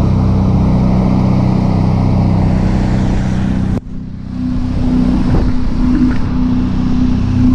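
Mazda RX-7 FD's 13B twin-turbo rotary engine idling steadily while warming up after three months of sitting. About halfway through the sound breaks off abruptly for a moment and the idle resumes with a slightly different tone.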